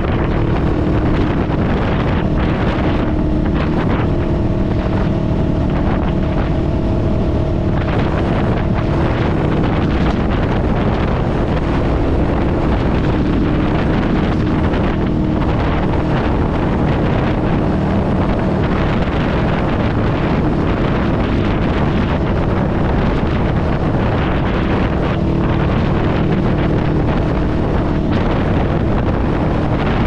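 Honda Rebel 500's parallel-twin engine running through a TBR Comp S aftermarket exhaust while riding, its note holding fairly steady, with heavy wind noise on the microphone.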